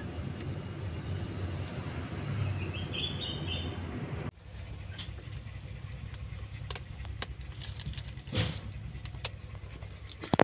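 Steady low background rumble with a short run of faint, thin, high-pitched mews from newborn kittens about three seconds in. Then, after a sudden drop, quieter room sound with scattered small taps and clicks and a brief louder rustle.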